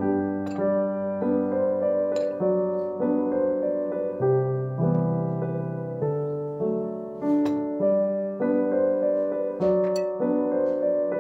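Background piano music, a new note struck about every half second over held chords.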